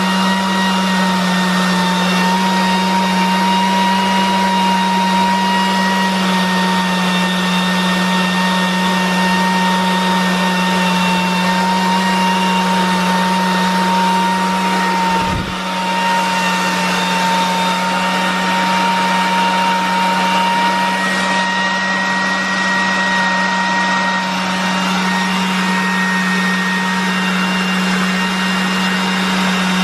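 Miele S8310 canister vacuum cleaner's 2200-watt motor running steadily at full airflow, with a constant whine and hum. One brief low knock and a short dip in level come about halfway through.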